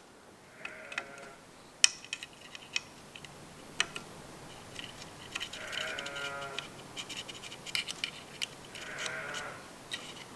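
Light metal clicks and taps of a screwdriver and feeler gauge working on a Ford Model A distributor's breaker points while the point gap is set. Three short squeaks stand out, about one, six and nine seconds in.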